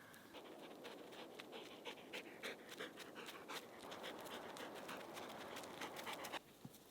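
Dog panting close by, a quick rasping breath with many small wet clicks, stopping suddenly near the end.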